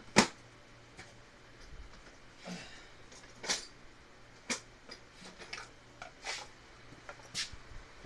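A sharp click, then a string of lighter clicks and clinks about a second apart, as metal drill bits and their case are handled and sorted through.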